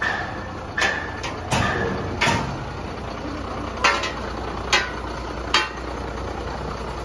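A steady low rumble with sharp knocks at irregular intervals, about seven in all, some ringing briefly.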